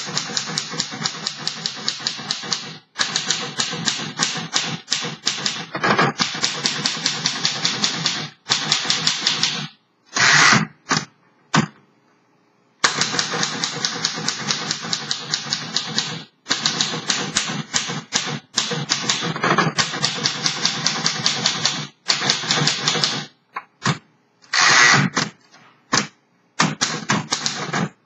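1928 Royal Portable P-model manual typewriter being typed on: rapid key and typebar strikes in runs, broken by several short pauses.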